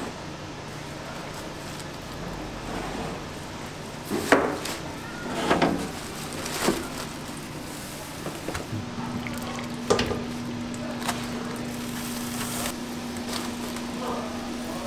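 Foil-wrapped smoked meat being moved from a barrel smoker's grate into a stainless steel pan: several sharp metal knocks and clatters, with the foil crinkling under gloved hands. A low steady hum comes in a little past halfway.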